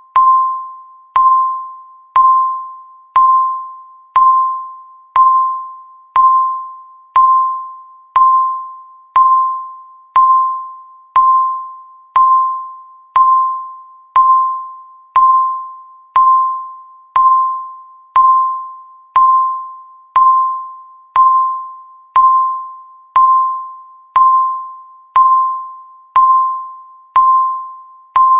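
Countdown timer beeping once every second: a single mid-pitched electronic tone that strikes sharply and fades away before the next beep, marking each second left.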